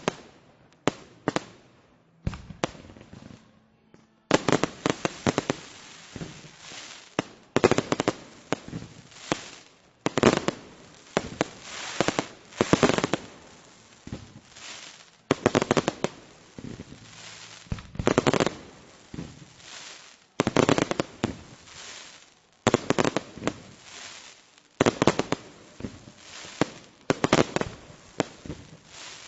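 Fireworks exploding: a few separate bangs at first, then from about four seconds in dense volleys of sharp bangs and crackle that swell every two to three seconds.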